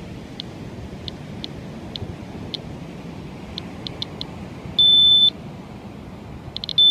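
Handheld Geiger counter radiation detector ticking irregularly with single high chirps, then sounding its steady high alarm beep for about half a second some five seconds in, and again at the very end after a few quick chirps: the count rate is passing the alarm threshold set at three times background.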